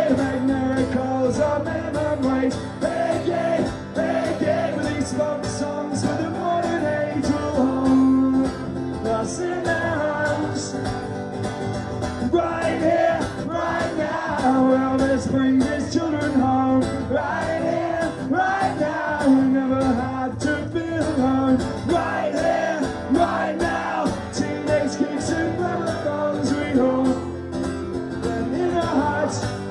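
Acoustic guitar strummed steadily, with singing over it, amplified live through a PA.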